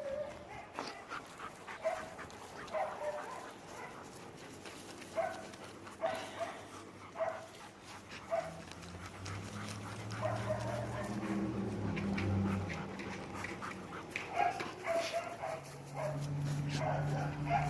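German Shepherd whining in short, high cries about once a second. A low steady hum runs underneath twice, midway and near the end.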